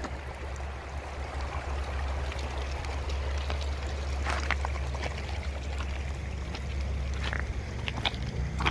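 Foamy landfill runoff flowing and trickling over stones in a shallow channel, a steady running-water sound with a low rumble underneath. A few short clicks come in the second half.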